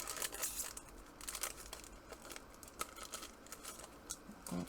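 Foil trading-card pack wrapper crinkling and tearing as it is opened: scattered light crackles and rustles.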